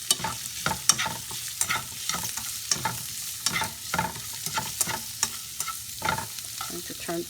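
Shrimp frying in a hot pan with oyster sauce, sizzling steadily while a utensil stirs them, with irregular scrapes and clicks against the pan a few times a second.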